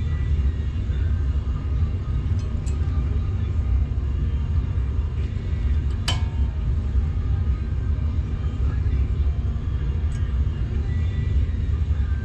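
Steady low background rumble with a few small metallic clicks, the sharpest about six seconds in, as steel brake pad clips are handled and fitted into a disc brake caliper bracket.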